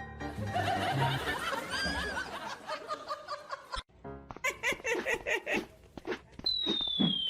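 Background music for the first second or so, then people laughing in short bursts, with a cut partway through. Near the end a single whistle-like tone glides steadily downward.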